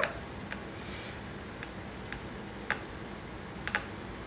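A handful of light, sharp clicks and taps at uneven intervals from gloved hands handling a tumbler and small supply containers on the work table, over faint room hiss.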